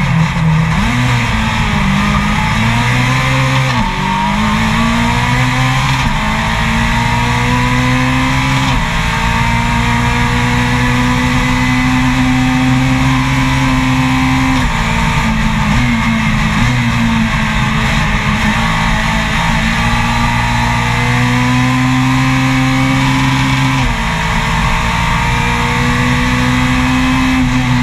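Race car engine at high revs heard onboard during a hill-climb run. Its pitch climbs steadily and drops abruptly several times, over a constant rush of wind and road noise.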